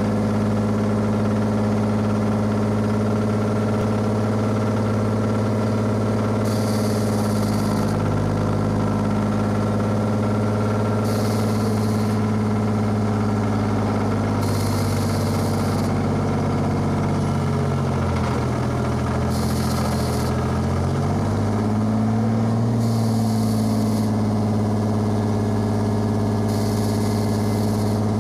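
Pettibone mobile truck crane's diesel engine running at a steady idle; about two-thirds through, its speed sags and then recovers. Short hisses recur every four seconds or so.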